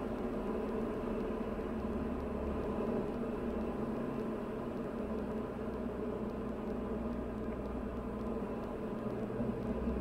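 Steady drone of a Diamond DA40's engine and propeller heard inside the cockpit on final approach.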